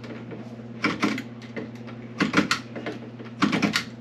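Utility knife blade scoring door shims: short scratchy cutting strokes in several bursts, over a steady low hum.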